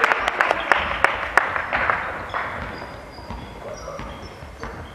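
Spectators clapping in a gym hall, dying away about two seconds in, followed by sneakers squeaking on the court floor.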